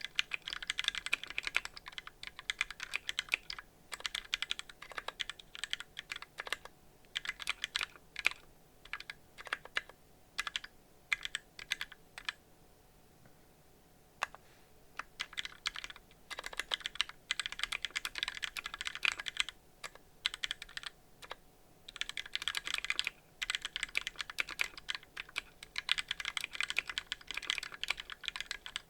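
Fast typing on a Tofu 60% mechanical keyboard with lubed Gateron Yellow linear switches on a brass plate and DCS keycaps: quick runs of keystrokes, with a pause of about two seconds near the middle.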